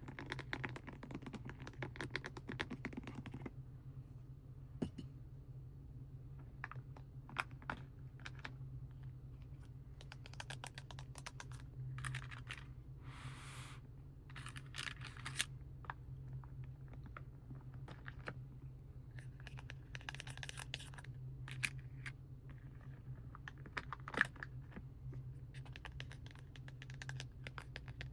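Irregular light tapping and clicking on plastic packaging, with a few short bursts of crinkling and scratching, over a steady low hum.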